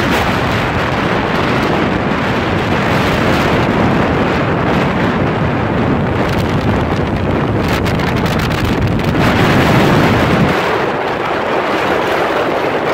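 Heavy wind buffeting the microphone aboard a small open motorboat under way, a dense steady rush. The low rumble eases about ten and a half seconds in.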